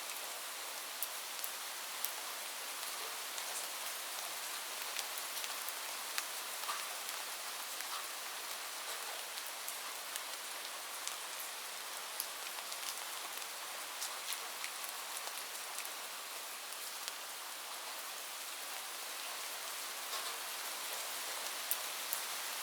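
Steady rain falling on a roof: an even hiss with scattered sharp ticks of individual drops.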